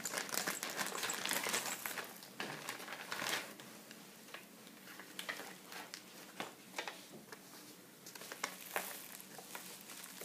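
Clear plastic bag and paper crinkling and rustling as they are handled, with irregular crackles. It is busiest in the first few seconds, then turns sparser and fainter.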